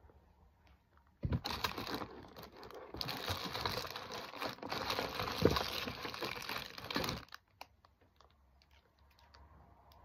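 Rummaging among small objects while looking for another hair elastic: a dense run of crackling, rustling and clicking that starts sharply about a second in and stops abruptly about six seconds later.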